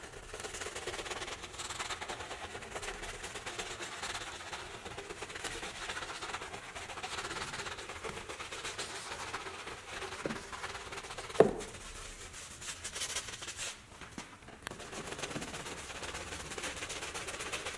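Stiff detailing brush scrubbing soapy foam on a pickup's running board and, after a short break, on the plastic fender flare, a steady wet scratchy brushing. A single sharp knock about 11 seconds in.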